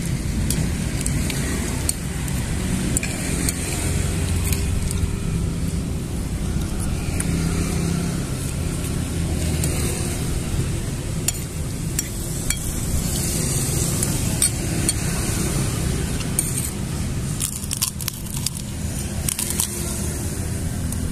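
Stainless spoon and fork clinking and scraping against a ceramic plate while eating, in scattered short clicks. A steady low rumble of road traffic runs underneath and is the loudest sound.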